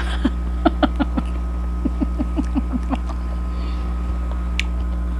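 Close-up chewing of crisp fruit: a run of short, wet crunching clicks, quickest between about two and three seconds in. A steady electrical hum lies underneath.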